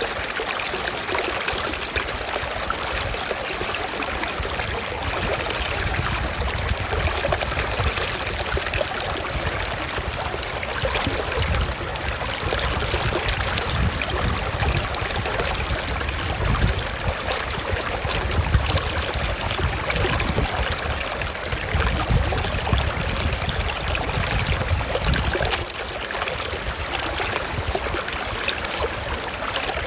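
Stream water running steadily over stones, a continuous babbling and trickling with many small splashes.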